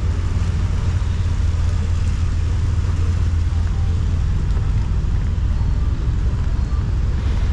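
Steady road traffic on a busy city avenue: a constant low rumble with an even wash of noise over it.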